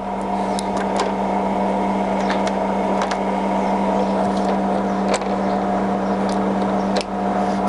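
Colchester Student 1800 centre lathe running under power with a steady hum, with a few light clicks as the quick-change gearbox is shifted through its settings, which change through smoothly.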